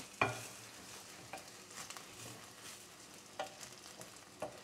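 Dry basmati rice grains toasting in ghee in a pot with a faint, steady sizzle. A wooden spoon stirs them, scraping and knocking against the pot a few times, most sharply about a quarter second in.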